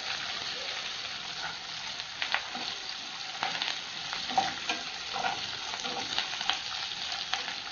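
Fresh curry leaves and green chillies sizzling in hot oil with mustard and cumin seeds in a nonstick kadhai, a steady hiss broken by many sharp crackles and pops as the leaves fry. A spatula stirs through the pan at the same time.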